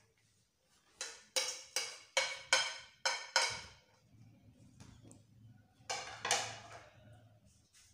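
A metal spoon clinks sharply against the dishes while ground spices are knocked off a plate into a steel mixing bowl. There are about seven quick ringing taps, then a couple more about six seconds in.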